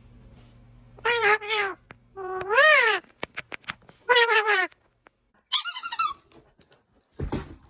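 A cat meowing four times, each call under a second long; the second call rises and falls in pitch. A few sharp clicks fall between the calls, and there is a thump near the end.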